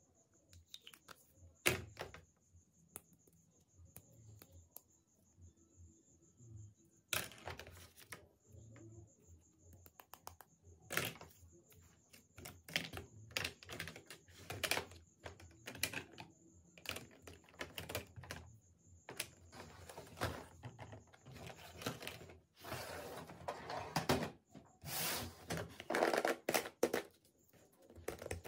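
Small hard plastic toy pieces being handled, clicking and tapping against each other and against a hard plastic carrying case, in quick irregular knocks. In the second half come longer scraping, rustling stretches as hands rub along the case and its label.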